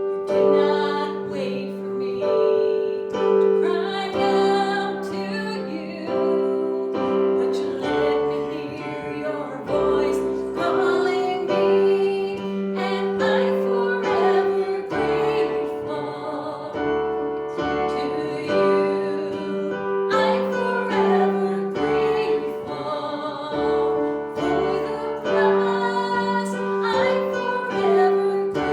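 Music: a woman singing with piano or keyboard accompaniment.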